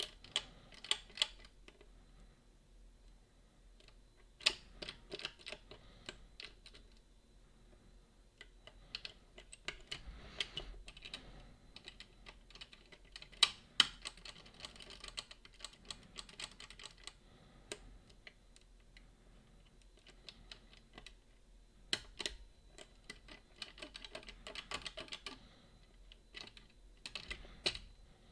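Picking tools working inside a Boda 429 eight-lever lever lock: irregular small metallic clicks and scraping as the levers are lifted and tensioned, with a few sharper clicks.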